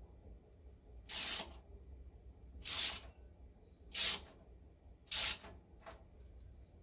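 Socket ratchet clicking in four short bursts about a second apart, each a quick swing of the handle, as it works the nuts on the big-end connecting rod cap of an International Type M 3 hp engine.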